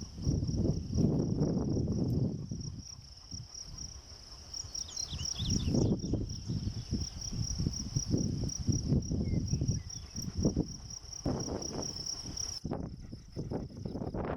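An insect trilling, a steady high-pitched pulsing buzz that cuts off sharply near the end and then carries on more faintly. Under it runs an uneven, gusty low rumble, louder than the trill.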